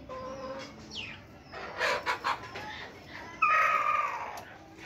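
Flock of Kadaknath and Gramapriya chickens calling: short chirps and a few sharp clucks, then about three and a half seconds in a loud, drawn-out squawk from one bird that slides slightly down in pitch.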